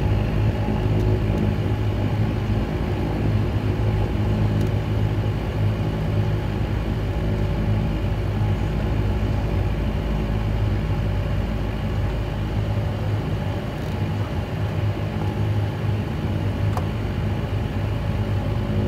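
De Havilland Canada Dash 8 turboprop engine and propeller running at low taxi power, heard from inside the cabin beside the wing: a steady drone with a deep, even propeller hum. It eases slightly about two thirds of the way through.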